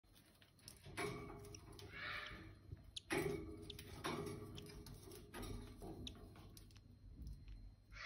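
Cockatiel chick's raspy begging calls while being fed by its parent in the nest box, in several rough bursts that start about a second in, with a few faint clicks.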